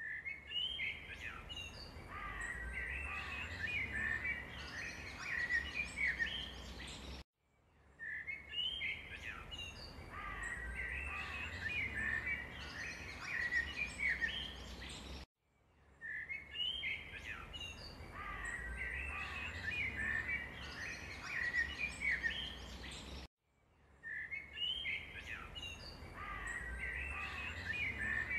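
Chirping and twittering of small birds as a looped background track: the same stretch of about eight seconds repeats, cutting to silence for a moment between each repeat.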